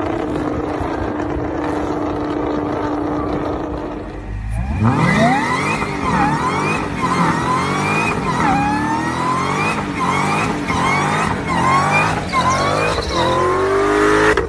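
For about four seconds, tyres squeal and skid as a Nissan GT-R drifts, its engine held at a steady pitch. Then a Dodge Challenger's V8 revs again and again during a burnout, its pitch climbing and falling roughly once a second, with a high whine rising with each rev.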